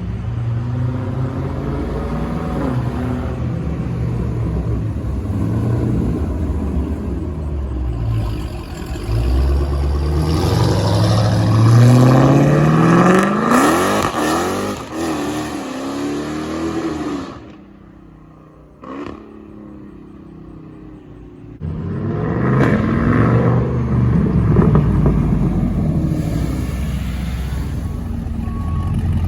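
Loud performance car engines rumbling and revving, with one car accelerating hard about a third of the way in, its pitch climbing steadily. The noise drops away sharply for a few seconds past the middle, then another loud engine picks up.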